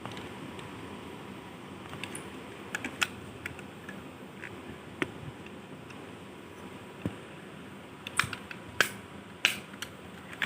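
Irregular sharp clicks and taps over a steady low hiss: a few single ones, then a quick cluster about eight seconds in and another shortly after.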